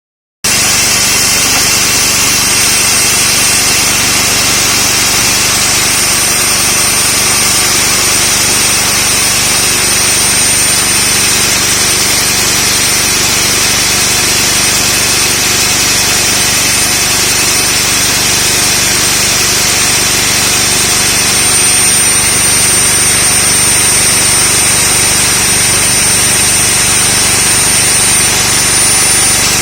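Concrete core drill running steadily, a continuous loud machine noise with a high whine over it.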